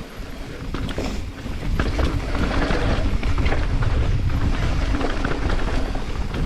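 Wind buffeting the microphone while riding a mountain bike down a dirt trail, with the tyres rumbling and the bike rattling over the bumps.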